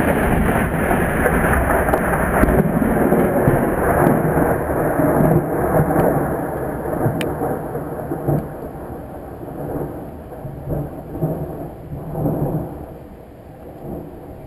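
A long roll of thunder with rain falling. The rumble is loudest in the first half, then slowly dies away, with one more swell before it fades.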